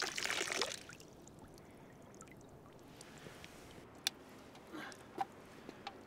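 Water poured out of a carved wooden cup, splashing for about the first second, then a few faint drips and two sharp clicks about four and five seconds in.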